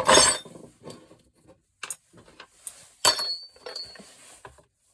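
Pieces of cast aluminium scrap clattering and clinking as they are handled and set down for weighing. A loud clatter comes right at the start, with scattered knocks after it, and one sharper hit about three seconds in rings briefly.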